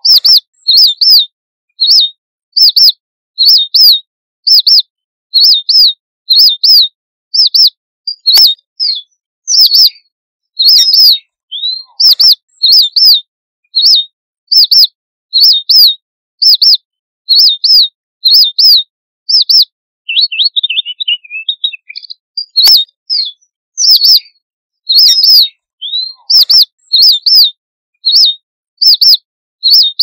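Red munia (strawberry finch) repeating short, high-pitched chirping calls in quick clusters, roughly two a second: its flock-gathering call. About two-thirds of the way through there is a brief, softer twittering passage before the calls resume.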